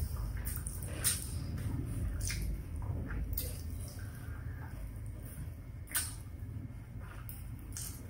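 Close-miked eating sounds of someone chewing fried chicken in barbecue sauce with her mouth full: wet mouth noises with sharp smacks and clicks at irregular intervals, about one every second or so.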